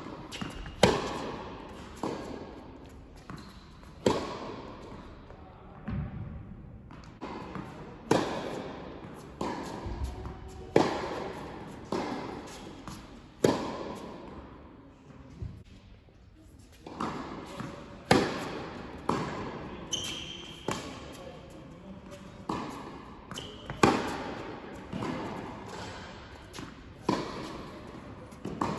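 Tennis rally on an indoor hard court: racquet strikes and ball bounces about every second, each sharp hit followed by the hall's echo.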